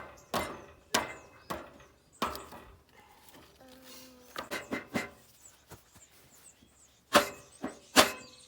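Hammer blows on metal, each with a short ring, in irregular groups, used to knock a part such as a bearing off a hay rake shaft.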